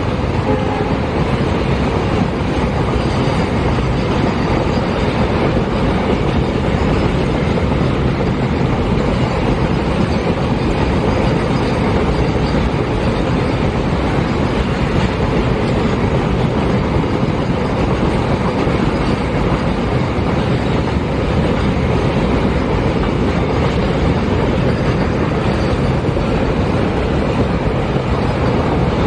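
Double-stack container wagons of a freight train rolling past close by: a steady, loud rumble of steel wheels on the rails that does not let up.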